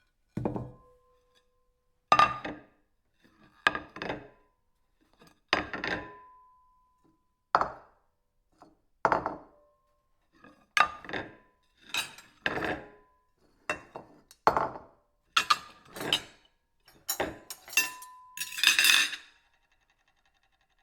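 Ceramic plates clinking and knocking in a series of separate sharp hits, some leaving a brief ringing tone. The hits come closer together in the second half, ending in a longer clatter.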